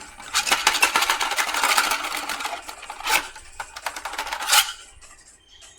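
Hard 3D-printed plastic parts clattering and knocking together as they are rummaged through and handled, with two sharper knocks near the end before it quiets down.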